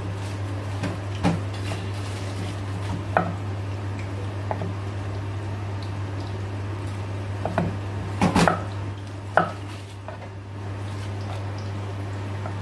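Kitchen utensils knocking and clinking against dishes, a few scattered strikes with a cluster of them about eight seconds in. A steady low hum runs underneath.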